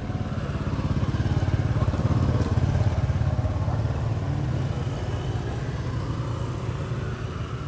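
Low, pulsing rumble of a motor vehicle engine passing nearby, growing louder over the first two or three seconds and then slowly fading.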